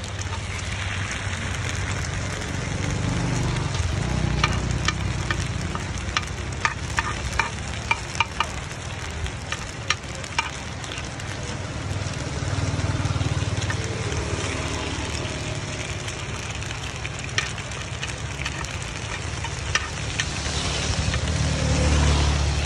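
Coconut cakes sizzling in a dimpled cast-iron pan, with a metal spoon clicking and scraping against the pan cups as the cooked cakes are scooped out, the clicks clustered in the first half. A steady low rumble runs underneath.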